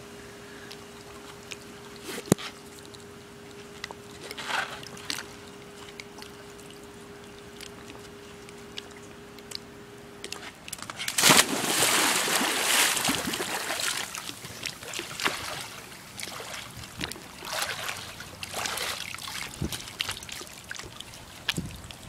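A person jumping into a pool: a big splash about halfway through, then several seconds of water sloshing and splashing as the water settles. A sharp tap comes about two seconds in, and a faint steady hum stops just before the splash.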